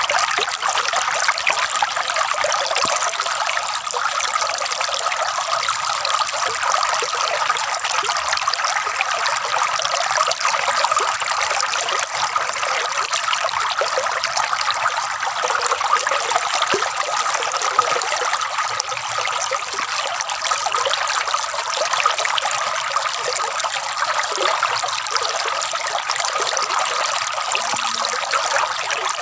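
Flowing water trickling and gurgling steadily, an even rushing hiss with no pauses.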